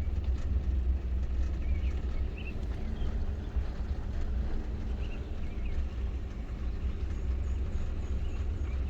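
Vehicle engine running with a steady low rumble, heard from inside the cab.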